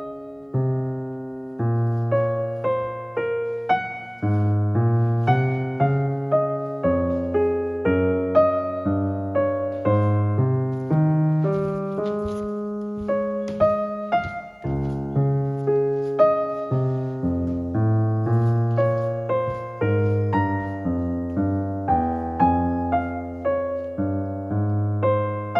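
Background music: an electric piano tune, its notes played one after another at an even pace.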